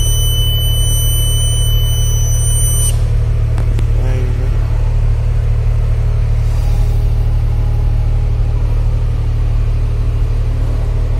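Diesel engine of a Terex rough-terrain crane running steadily, a low rumble heard from inside the operator's cab. A thin, high steady tone sounds over it and cuts off about three seconds in.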